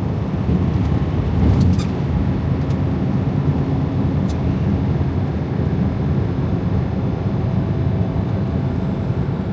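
Inside the cab of a Freightliner Cascadia semi truck cruising on the highway: a steady low rumble of engine and road noise, with a few light clicks.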